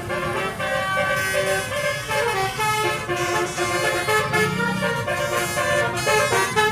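A tour bus's basuri telolet musical horn playing a tune: a quick run of pitched horn notes stepping up and down.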